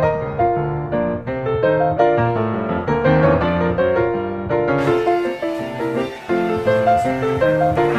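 Background piano music, a steady flow of notes in a calm melody.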